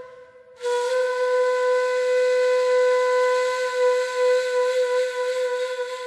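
Ney, the Turkish reed flute, playing a taksim (solo improvisation) in makam Bestenigâr. After a short breath pause it comes in about half a second in and holds one long, steady, breathy note.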